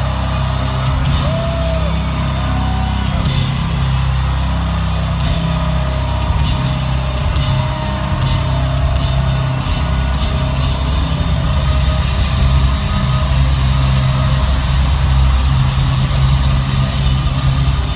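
Rock band playing live at full volume: heavy bass and distorted guitar over a drum kit with regular hits.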